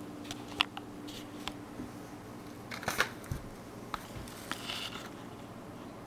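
Scattered small clicks and taps of a handheld camera being handled and moved, with a cluster of louder knocks about three seconds in. A faint steady hum stops about two seconds in.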